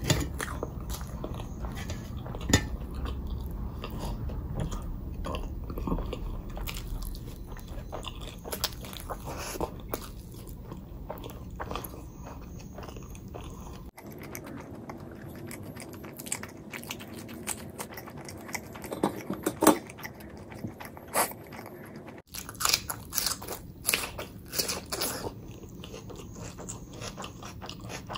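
Close-miked mouth sounds of a person eating: biting, chewing and crunching, with irregular sharp crunches that are loudest in the last third. The sound breaks off abruptly twice, about halfway through and again about two-thirds in, like cuts in the recording.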